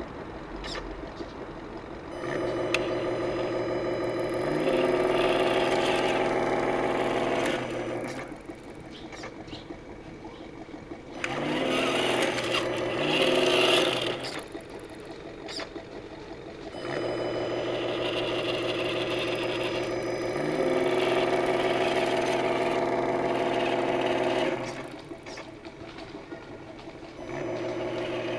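Simulated engine sound from the onboard sound unit of a Tamiya Toyota Hilux High-Lift RC truck. It rises in flat steps from idle to a steady running note and drops back, twice. About halfway a noisier whirring stretch is the loudest part.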